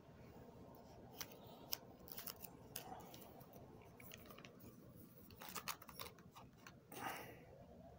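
Plastic nine-pocket trading-card binder sheet being turned: a series of faint crinkles and clicks, with a louder rustle about seven seconds in.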